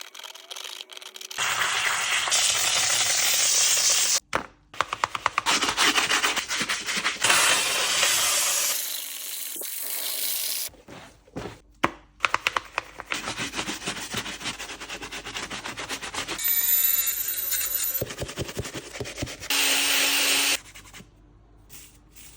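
Sneaker being cleaned and restored by hand: bursts of brush scrubbing and rubbing on the shoe, cut together in short segments that start and stop abruptly.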